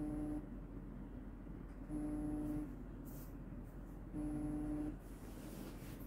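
An electronic beep tone sounding again and again, each beep about two-thirds of a second long and one every two seconds or so, three times, with a short hiss between the second and third beeps and another after the third.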